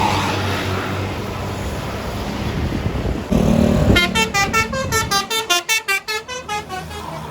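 A bus passing, with engine and road noise, then a short, low horn blast. After that comes a basuri-style telolet musical horn playing a fast run of high, stepping notes, several a second, over the last three seconds.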